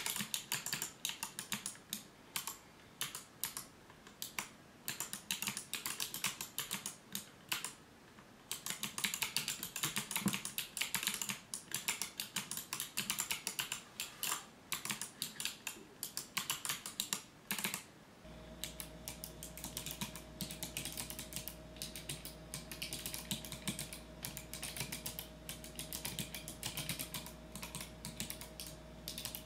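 Rapid typing on a keyboard with Kailh Navy key switches, a fast, uneven stream of sharp key clicks. About two-thirds of the way through, a steady low hum and a faint steady tone come in under the keystrokes.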